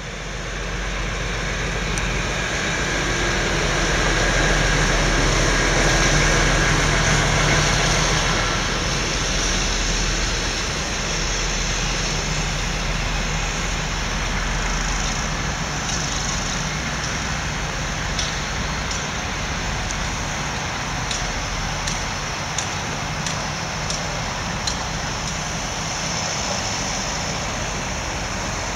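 PKP SU45 diesel locomotive's 12-cylinder turbocharged engine running under power as it pulls away with a coach. It swells to its loudest a few seconds in, then stays steady, with a few sharp clicks in the second half.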